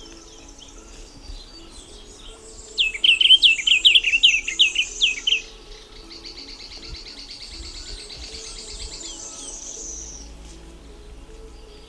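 Diademed tanager singing: a quick run of loud, sharp, down-slurred notes lasting about two and a half seconds. A long, even, high trill follows, with other birds faintly in the background.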